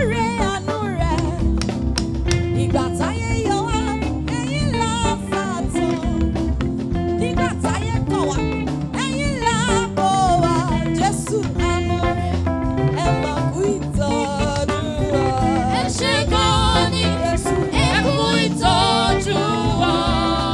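Upbeat praise and worship music with singing over a steady percussive beat.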